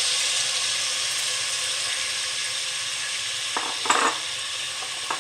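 Chopped onion sizzling in hot oil in a steel pot, just tipped in: a steady hiss, with a couple of brief knocks about three and a half to four seconds in.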